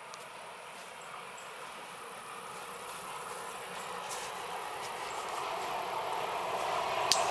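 Class 742 diesel locomotive hauling a train of loaded freight wagons, approaching and rolling past. The engine and wheel noise grows steadily louder, with a sharp click shortly before the end.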